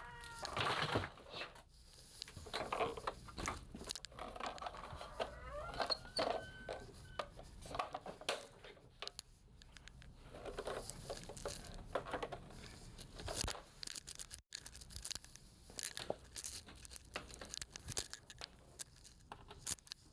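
Irregular clicks, scrapes and rustles of objects being handled and moved on a workbench while test gear is being set up and plugged in.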